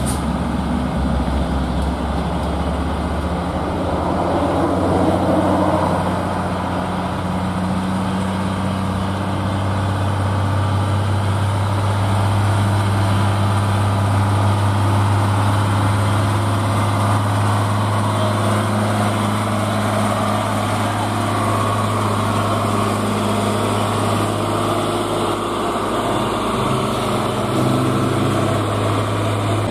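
Diesel engine of a Mitsubishi Fuso 220PS 6x2 cargo truck running under steady load as the truck drives past, a constant low engine drone that shifts up slightly near the end.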